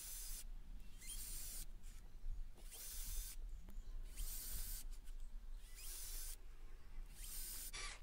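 Cordless drill running in about six short bursts, drilling pilot holes into a wooden board.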